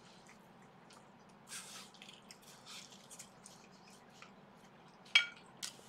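A man chewing a mouthful of vegetable kakiage (tempura fritter): faint, scattered wet chewing sounds, with a brief louder mouth noise about five seconds in.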